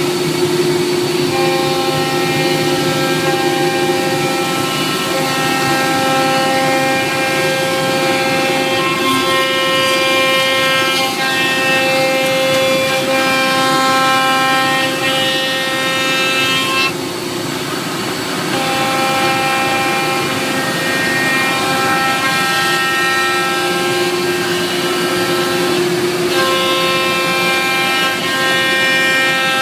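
CNC router cutting a wood sheet: the spindle and axis drives give a steady machine whine made of several tones that shift pitch every few seconds, with a brief drop about halfway through.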